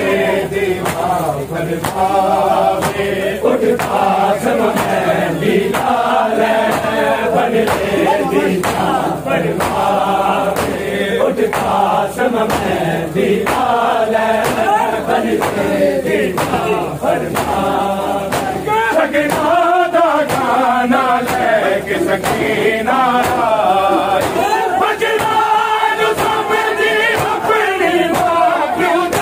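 A group of men chanting a noha, an Urdu mourning lament, in unison in a sung melody. Under it runs a steady beat of sharp slaps from hands beating chests in matam.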